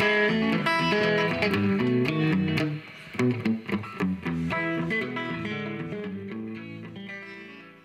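Fender Stratocaster electric guitar played with a quick run of picked notes, then a few struck chords about three seconds in, and a last chord ringing and fading away near the end.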